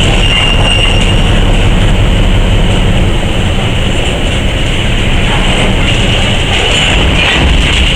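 Covered hopper cars rolling slowly along the track over the unloading pit, with a steady low diesel rumble from the EMD SW1200 switcher moving them.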